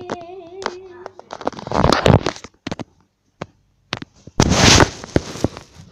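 Handling noise from a phone being carried and moved: its microphone rubs and bumps against clothing, giving two loud rustling scrapes, about two seconds in and again near five seconds, with scattered clicks between. A wavering tone is heard in the first second.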